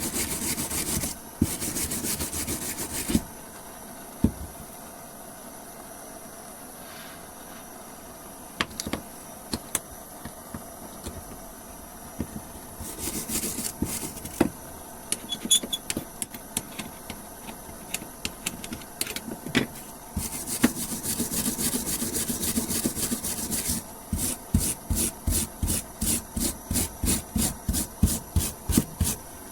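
Hand wire brush scrubbing old paint off a metal door hinge: spells of scrubbing broken by pauses with a few clicks, ending in a run of quick, even back-and-forth strokes about three a second.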